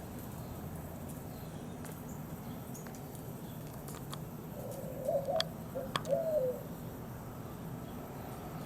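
A bird cooing once in two short phrases about halfway through, over a steady low background rumble, with a few sharp clicks around it.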